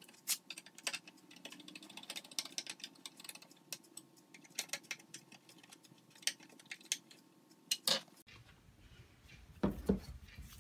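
Hand screwdriver driving screws through metal brackets into a wooden wagon bed: a run of small clicks and scrapes from the screwdriver tip and metal hardware, ending in a louder clatter. Near the end, a dull thump as an old rubber-tyred wagon wheel is handled on the bench.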